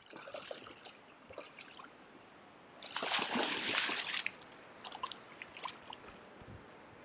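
Hooked muskie thrashing at the water's surface: a few small splashes, then a longer, louder splash about three seconds in lasting about a second, followed by smaller drips and splashes.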